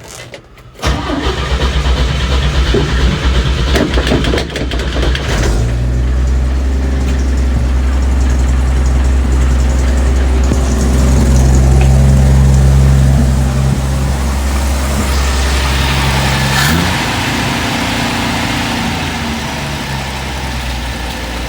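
Chevrolet C10 pickup's engine starting about a second in on its newly fitted carburetor, running unevenly for a few seconds, then settling into a steady idle, with a shift in engine speed about two-thirds of the way through. It runs well on the new carburetor: "way better", already dialed in.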